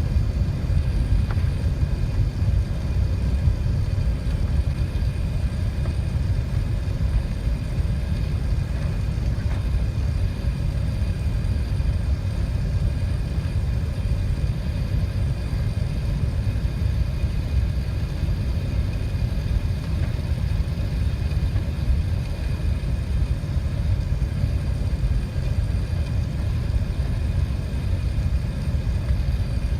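Steady low rumble of engine and airflow noise inside an Airbus A380 cabin, with faint steady higher tones over it.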